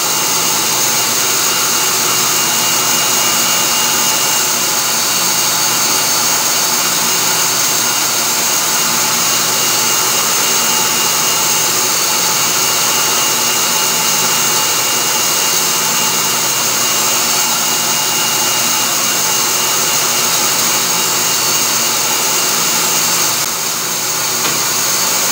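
Themac toolpost grinder, the Clausing lathe's three-phase motor and a rotary phase converter all running together: steady loud motor noise with a high-pitched whine, as the grinder is power-fed through the jaws of a three-jaw chuck to grind out their bell-mouthed taper. Near the end the sound dips slightly and part of the whine stops.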